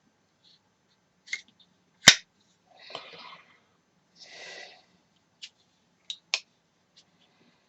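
Sharp clicks and handling noise from a lock knife with wooden scales being handled: a loud click about two seconds in, two short rubbing sounds after it, then a few more clicks near the end.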